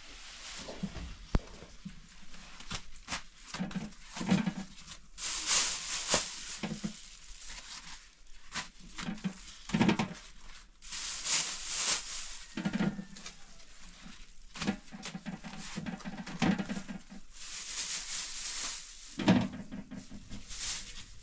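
A large plastic bag rustling and crinkling in three long bursts while hands work in a metal basin, with scattered soft knocks against the basin, the loudest about ten seconds in and near the end.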